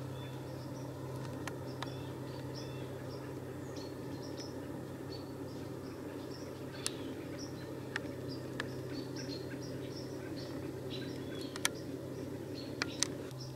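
Faint, scattered bird chirps over a steady low background hum and hiss, with a few sharp clicks, mostly near the end.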